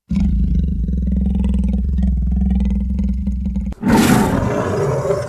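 A low, steady growling roar that cuts off sharply about three and a half seconds in, followed by a louder, brighter roar that slowly fades.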